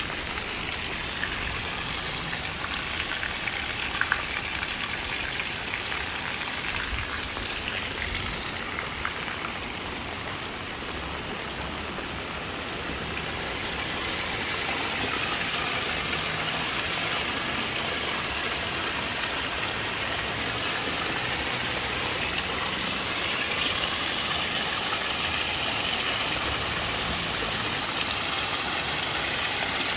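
Heavy rain falling steadily, growing louder a little before halfway through.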